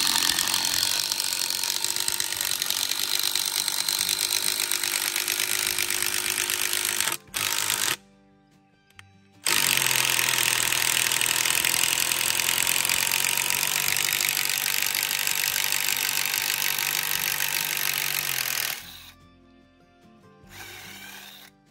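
Power drill with a paddle bit boring a pilot hole into wood for a gate's hanging bolt, running in two long spells with a short pause between, then stopping near the end.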